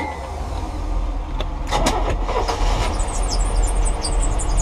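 Boat engine idling with a steady low rumble, freshly started. Short high chirps start about three seconds in.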